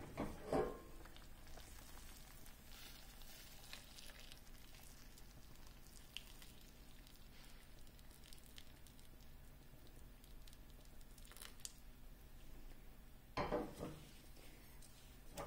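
Faint, steady sizzling and simmering in a hot stainless steel pan of cauliflower as the cooking water from boiled chana dal is poured in. Two brief louder clatters come, one near the start and one near the end.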